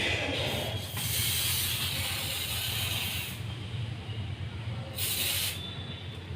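Aerosol can of liquid penetrant spraying onto a weld for the penetrant stage of a dye penetrant test: a long hissing spray, then a second short burst about five seconds in.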